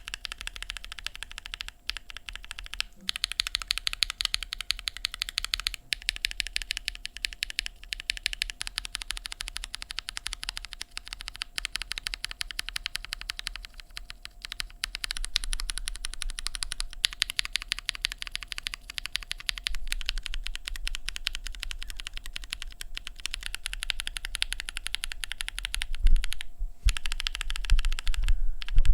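Mechanical keyboard with tactile switches in an aluminium plate and GMK keycaps, typed on fast and continuously. The keys clack in quick runs that break off briefly a few times.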